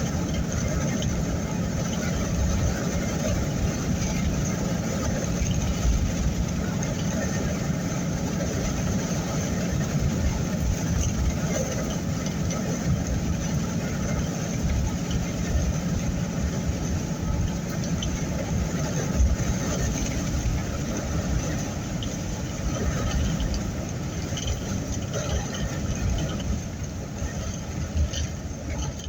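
Steady road and engine noise inside the cabin of a moving vehicle, with a constant low rumble throughout.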